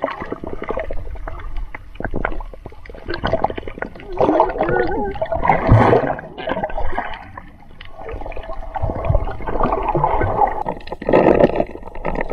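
Water gurgling and sloshing heard from underwater, muffled and uneven, with many small clicks and knocks.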